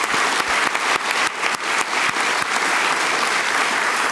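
An audience applauding steadily, with sharper individual claps standing out from the mass of clapping.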